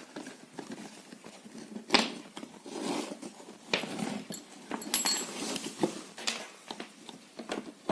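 Handling noises as the end cover of an immersion water heater rod is opened: scattered clicks, knocks and scrapes, the sharpest about two seconds in.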